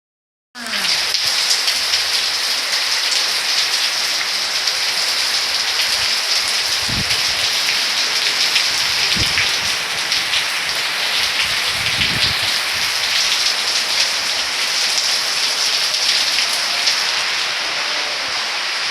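Heavy summer rain pouring down steadily, a dense hiss of drops hitting surfaces, with a few low thumps partway through.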